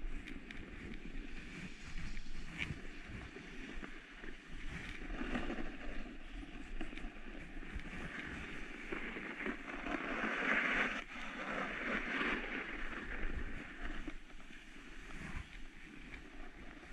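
Edges of a downhill rider's gear scraping and hissing over packed, groomed snow during a descent, with a low rumble of wind on the microphone. The scraping swells louder for a couple of seconds past the middle.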